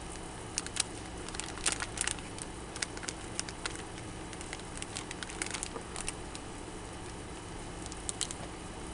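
Plastic bait packaging crinkling and crackling as it is handled, in short scattered bursts over a steady low hum.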